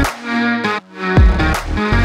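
Electronic intro music with heavy bass and falling pitch sweeps; the bass drops out briefly just before the middle.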